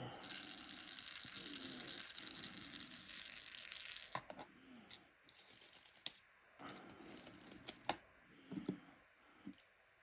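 Hands handling diamond-painting pieces on a tabletop: a soft, steady rustle for about four seconds, then a scatter of light clicks and taps.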